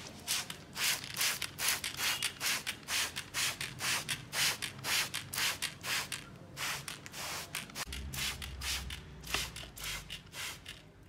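Trigger spray bottle squirting water in quick repeated strokes, about three a second, with a couple of short pauses.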